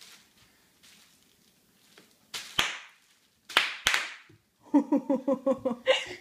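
Bubble wrap popping under a toddler's feet: several sharp pops, the loudest in a cluster about two and a half to four seconds in. Near the end comes a quick rhythmic run of the toddler's voice, about seven short pulses a second.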